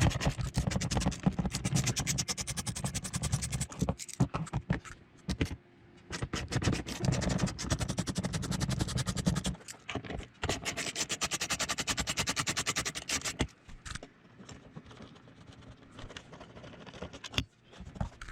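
Screws being backed out of a truck door panel with a hand tool: fast runs of rapid clicking in three stretches of a few seconds each, with a few scattered ticks near the end.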